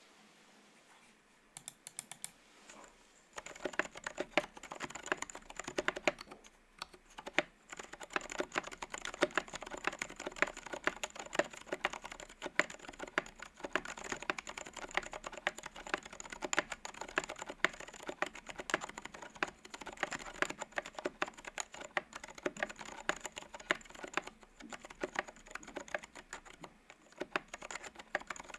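Typing on a Space65 CyberVoyager 65% mechanical keyboard fitted with lubed Zilents V2 silent tactile switches, a carbon fibre plate, case foam and XDA keycaps. A few scattered keystrokes come first, then a steady stream of rapid key presses from about three seconds in, with a short pause around seven seconds.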